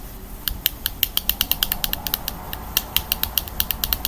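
Fidget Cube's toggle switch being flicked back and forth over and over, a quick run of sharp clicks, several a second, starting about half a second in.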